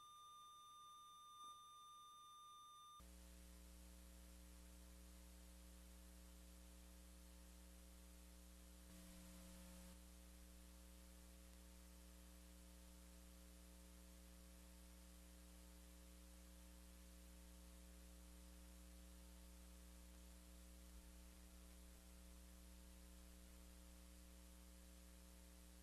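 Near silence with a faint steady electrical hum. For the first three seconds a faint steady high tone sounds instead.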